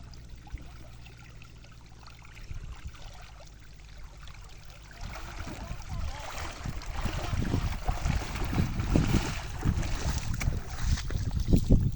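Water sloshing and splashing, quiet at first and much louder and choppier from about five seconds in.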